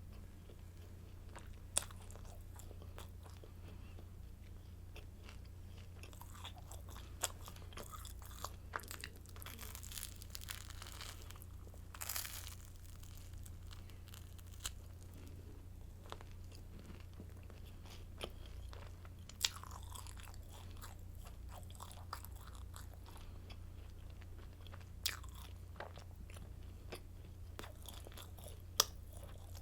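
Close-miked crunching and chewing of hard garlic baguette sticks: sharp crunches at irregular intervals, some in quick clusters, over a steady low hum.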